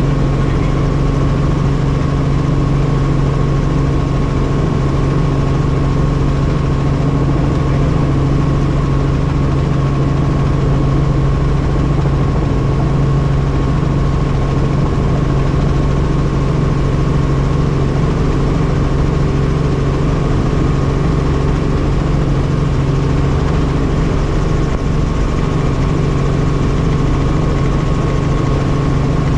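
Helicopter running steadily: an even, unchanging hum of engine and rotor with several steady tones in it.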